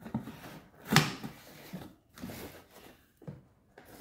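Product packaging being handled: rustling and light knocks, with one sharp knock about a second in.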